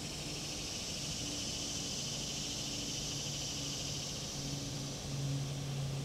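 Cicada buzzing in the trees: a fast pulsing drone that swells in at the start and fades out near the end. Under it runs a low steady hum that grows a little louder near the end.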